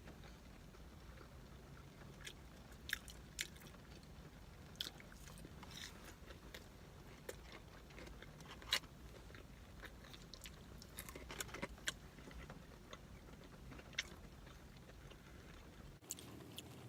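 A person chewing fast food close to the microphone, with wet mouth clicks, smacking and crunches at irregular intervals; the loudest click comes about halfway through.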